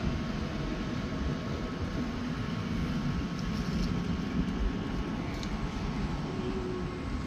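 Cordless electric hair clippers running with a steady buzz while cutting short hair at the side and back of the head.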